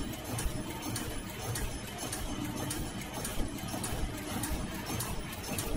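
Servo-driven automatic 3-ply flat face-mask machine running at production speed: a steady mechanical din with a regular clatter of clicks and knocks from its moving stations.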